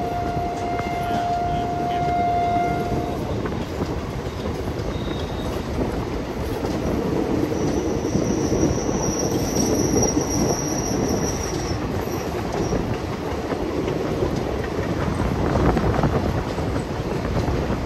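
Passenger train with ICF coaches running at speed, its wheels making a steady rumble on the rails. A locomotive horn sounds one steady note for about the first three seconds, and a thin, high wheel squeal comes in from about eight to twelve seconds in.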